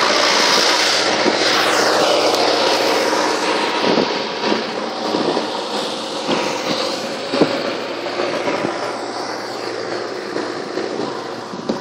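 Heavy diesel machinery running with a steady hum. A high whine falls in pitch a second or two in, and scattered knocks and clicks come from about four seconds on as the sound eases slightly.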